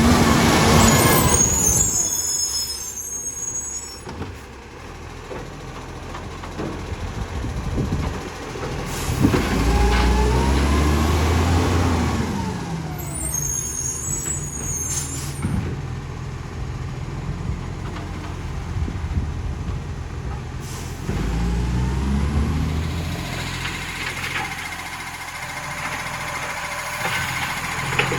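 Rubbish truck's diesel engine, which has an exhaust leak, revving up and dropping back three times, with the air brakes hissing twice.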